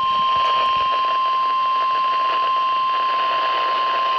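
NOAA Weather Radio warning alarm tone: a single steady high-pitched tone held unbroken over light static, the signal that a severe weather warning broadcast follows.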